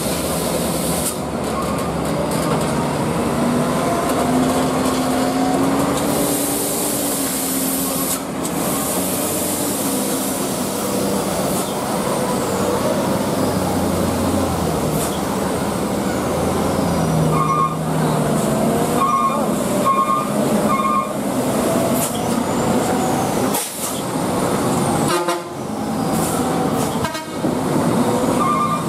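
Diesel engines of heavy Hino dump trucks labouring up a steep hairpin climb, their pitch rising and falling as they pull through the bend. Several short horn toots come in the second half.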